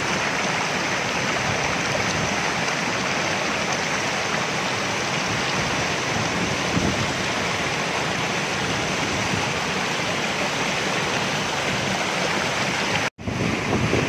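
A waterfall and its shallow stream rushing over rocks: a steady, even rush of white water. It cuts out for an instant near the end.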